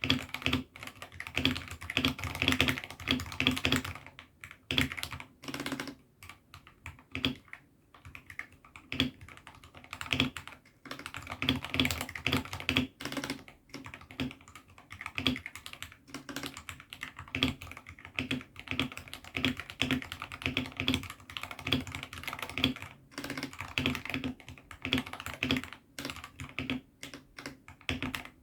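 Typing on a mechanical keyboard fitted with AKKO Sakura switches: dense runs of keystrokes with short pauses between bursts.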